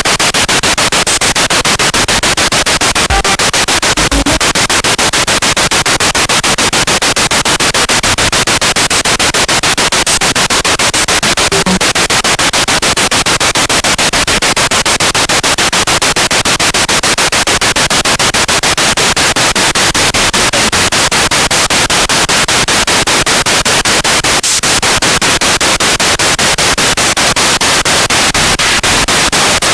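Spirit box radio sweeping through stations: loud, continuous static hiss chopped into a rapid, even pulsing as it jumps from channel to channel, with only a few faint, short blips of sound breaking through.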